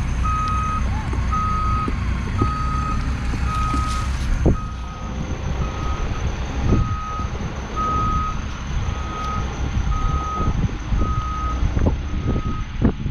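Truck-mounted forklift's back-up alarm beeping steadily, about one and a half beeps a second, over its engine running as it moves with a load of long wooden beams. A few sharp knocks, the loudest about four and a half seconds in.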